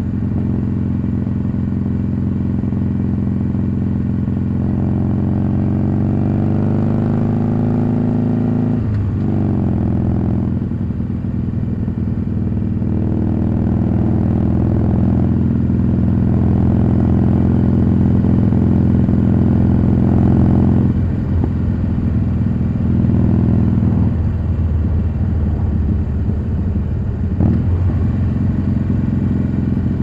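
Harley-Davidson Sportster 883 Iron's air-cooled V-twin running through Cobra slip-on mufflers while riding. The engine note climbs steadily for a few seconds and drops sharply at a gear change about nine seconds in. It then runs on with a few more brief dips in the note later.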